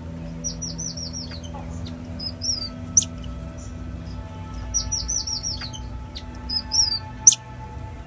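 High-pitched chirping calls: a quick run of about five falling chirps, a short trill and a sharp click, with the same sequence heard twice. Soft background music with steady held tones runs underneath.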